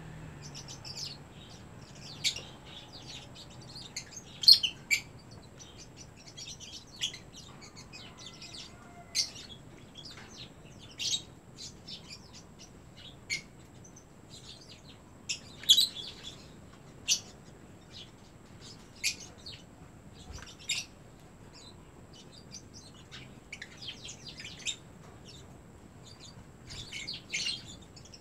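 Lovebirds chirping: short, sharp, high-pitched chirps scattered every second or two, some in quick clusters.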